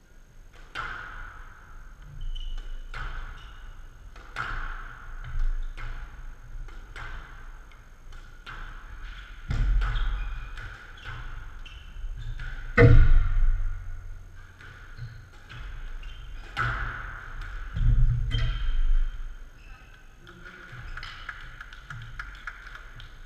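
Squash rally on a glass court: the ball cracking off rackets and smacking the front and glass side walls about once every second or so, with heavier thuds, the loudest about halfway through. The hitting stops a few seconds before the end.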